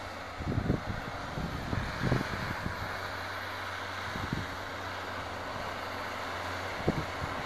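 Tractor engine running steadily under load as it pulls a plough through the soil, with a few short low thumps of wind on the microphone.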